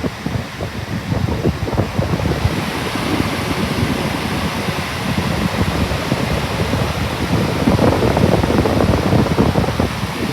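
Lasko B20308 box fan running, its airstream buffeting the microphone as a loud, gusty rushing noise that swells a little about three quarters of the way through.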